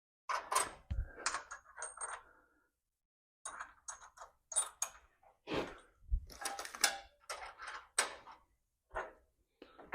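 Metal hardware and hand tools being handled: a scattered run of sharp clinks, clicks and light knocks, irregular and with short pauses between them.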